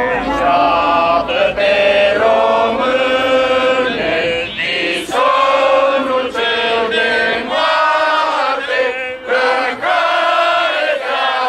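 A crowd of protesters chanting slogans together in Romanian, in loud, drawn-out phrases that repeat with short breaks.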